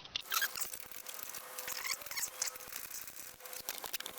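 Ratchet socket wrench clicking rapidly as a bolt is turned loose, with light metal ticks from the wrench and hardware.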